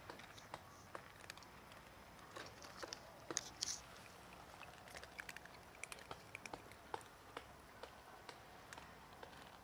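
Several cats eating dry kibble: faint, irregular crunching and clicking as they chew, with a few louder crunches about three to four seconds in.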